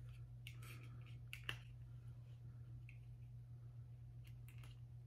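Faint, scattered clicks of the small hinged plastic side panels of a miniature toy accessory being opened by hand, over a low steady hum.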